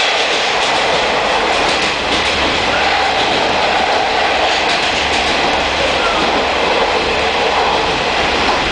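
Steady running noise heard inside a diesel railcar on the move: the rush and rumble of wheels on rail and the underfloor engine, with faint scattered clicks.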